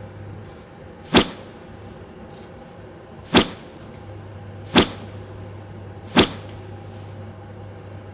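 Four short, sharp knocks at uneven intervals of a second or two, over a steady low hum.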